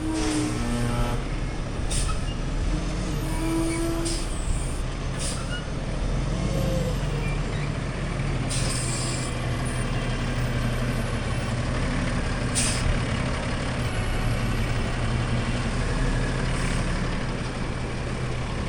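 Bale squeeze truck's engine running steadily while it sets bales, with a few short hisses from its air system.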